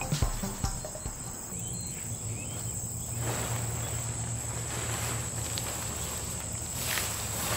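Outdoor ambience with a steady, high-pitched insect drone, and rustling that swells up twice. The last beats of music die away in the first moment.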